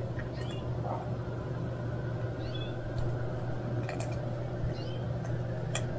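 Steady low machine hum, with faint short chirps every second or two and two sharp clicks in the second half.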